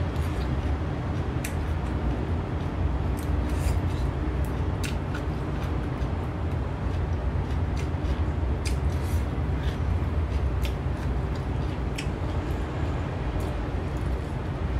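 Chewing a bitten cucumber, heard as scattered sharp crunching clicks, over a steady low rumble.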